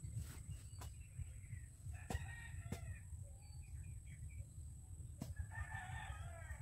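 A rooster crowing twice, once about two seconds in and again near the end, with a few sharp clicks in between.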